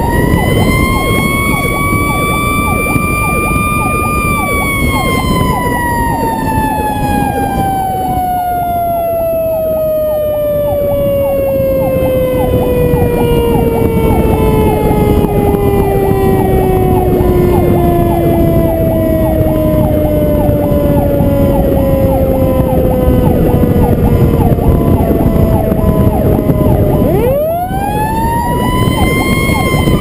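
Fire truck siren sounding while the truck drives. Its pitch rises for the first few seconds, then slides slowly down for about twenty seconds, and winds sharply back up near the end. A faster repeating siren tone and the truck's engine and road noise run underneath.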